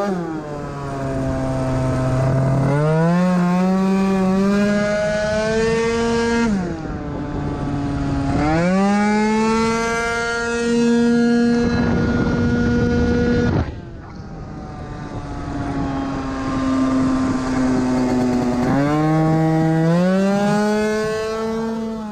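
Piaggio Zip SP scooter with a 70cc two-stroke kit, heard from onboard at full throttle. The engine note climbs and then holds at a steady high pitch while the speed rises. It falls away sharply twice, about six seconds in and again near fourteen seconds, when the throttle is closed for corners, then climbs again.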